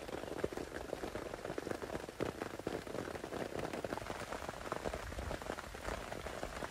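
Rain falling on the fabric of a rooftop tent and its awning: a dense, irregular patter of drops. A low rumble comes in about five seconds in.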